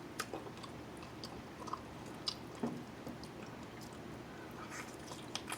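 Close-miked chewing of jerk chicken: soft, wet mouth smacks and small clicks scattered throughout, with a brief closed-mouth murmur a little past halfway.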